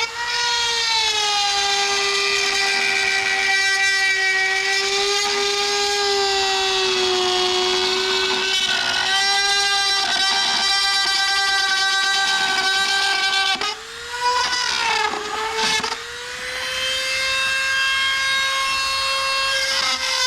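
A high-speed power tool motor running with a steady whine. It wavers around 14 and 16 seconds, dropping in pitch and loudness as it is loaded, then settles back to a steady whine.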